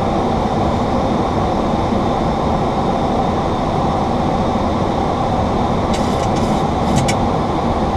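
Steady rushing noise of airflow and engines heard inside the cockpit of a Boeing 737-800 in flight. A few faint clicks come near the end.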